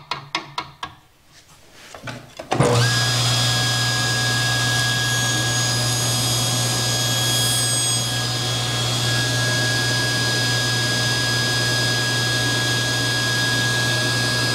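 A few light clicks as the table-saw fence is nudged over, then about two and a half seconds in a SawStop table saw switches on and runs steadily, a low drone with a constant high whine.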